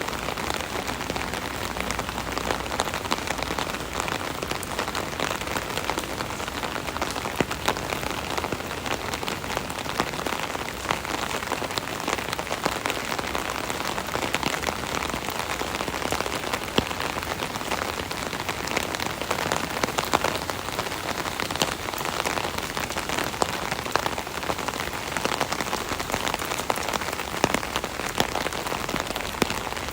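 Steady rain drumming on an umbrella canopy, a dense patter of individual drops with sharper louder drops scattered throughout.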